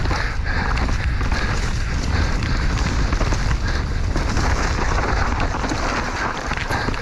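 Mountain bike descending a rough trail at speed: wind buffeting the microphone over a steady rush of tyres on dirt and rock, with frequent rattles and knocks from the bike.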